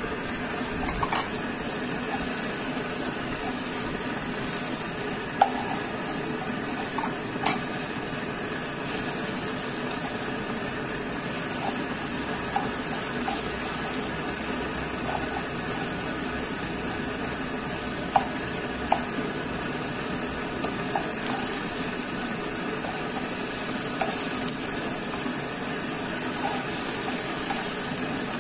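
Chopped onion and garlic sizzling steadily in hot oil in a non-stick wok, with a spatula scraping and clicking against the pan now and then as it stirs.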